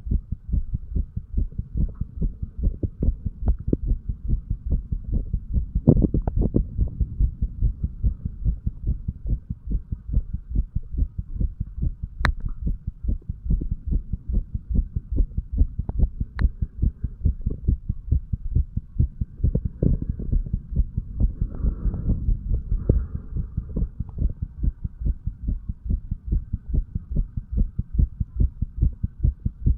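Human heartbeat recorded on the chest over the tricuspid valve area: a steady run of low, evenly repeating lub-dub thumps. Two brief sharp clicks come through near the middle.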